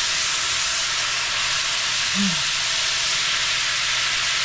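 Garlic sizzling in melted butter in a frying pan, a steady hiss.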